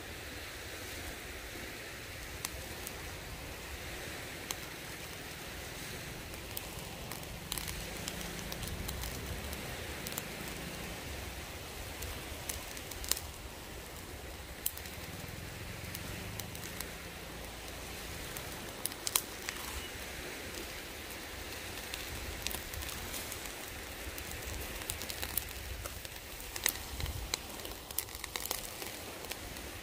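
Tomahawk beef steak grilling over a fire: a steady sizzling hiss with frequent sharp crackles and pops, and a faint low rumble underneath.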